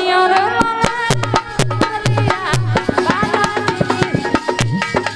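Indian devotional folk song music: a fast, steady hand-drum beat with low booming strokes under a melody line.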